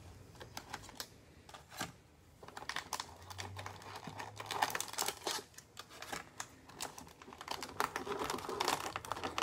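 Foil trading-card packs rustling and clicking as they are pulled one by one from a cardboard box and stacked on a tabletop: a run of light taps and crinkles, sparse at first and busier from about two and a half seconds in.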